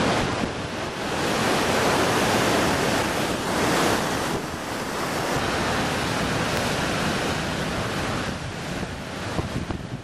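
Heavy surf from a big ocean swell: large waves breaking and washing ashore in a continuous rush, with wind buffeting the microphone.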